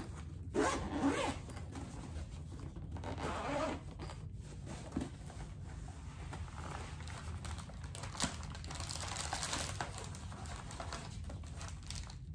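Zipper on a massage gun's black hard-shell carry case being pulled open in several long strokes, with rustling as the case is handled.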